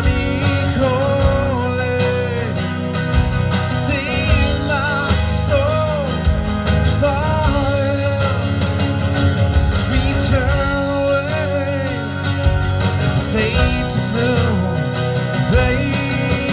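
A live rock band playing an instrumental passage: a lead guitar line with bending notes over steady bass and drum hits.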